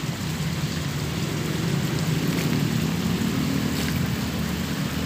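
Steady outdoor background noise, a hiss with a low rumble underneath that grows a little about halfway through.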